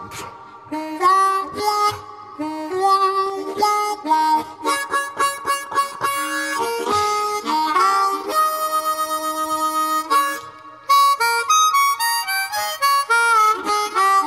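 Background music: a harmonica-led blues tune playing a melody of short and held notes.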